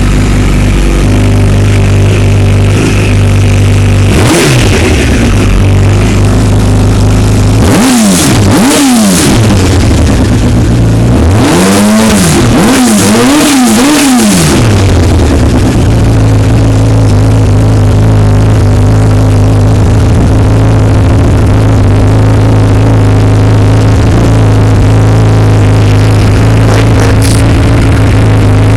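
2000 Kawasaki ZX-12R Ninja's inline-four engine idling while the throttle is blipped: one rev about four seconds in, two quick revs around eight seconds, and three in a row around twelve to fourteen seconds, each rising and falling back to idle. It then settles into a steady idle. The engine is very loud on the microphone.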